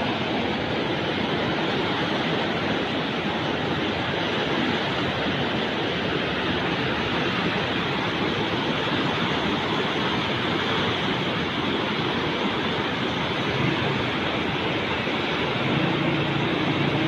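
Muddy, swollen flood river rushing past in a steady, loud torrent of water noise.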